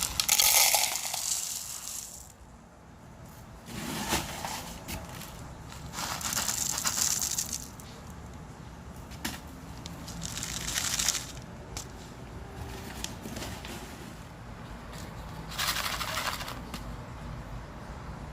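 Bursts of rustling and crackling come five times, a few seconds apart, over a low steady background.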